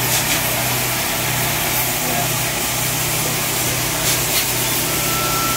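Steady steam hiss with a low hum from the cab of steam locomotive Reading 2102 under steam, by its backhead.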